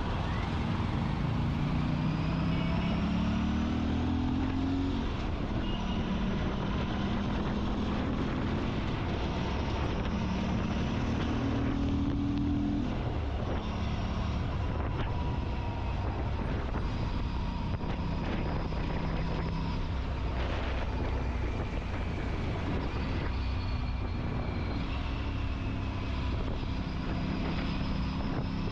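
Aprilia RS 457's parallel-twin engine pulling hard through the gears, the revs climbing and then dropping sharply at upshifts, about 5 seconds in and again about 13 seconds in, over steady wind and road noise.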